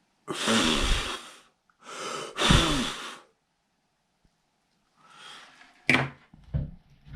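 A person blowing out two loud breaths, each about a second long. A few short clicks and knocks follow near the end.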